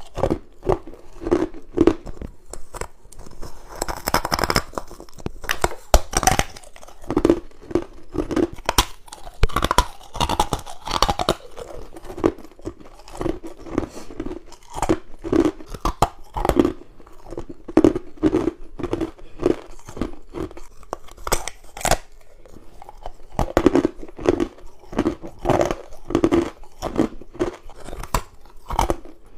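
Close-up biting and chewing of frozen purple humidifier frost and ice cubes: a continuous run of sharp, crisp crunches with chewing between the bites.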